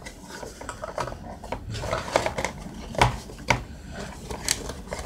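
Cardboard and plastic camera packaging being handled: irregular sharp clicks and taps with light rustling, the loudest about three seconds in.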